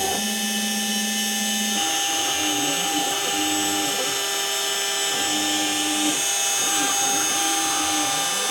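Home-made CNC engraver at work: the spindle gives a steady high whine while the stepper motors hum in repeated rising and falling pitches as the axes move, after a steady low hum for the first two seconds.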